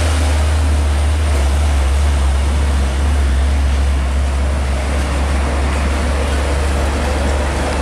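Diesel engine of a heavy tandem-axle tanker truck running as the truck drives past and pulls away, with a deep steady low rumble and road noise from passing traffic.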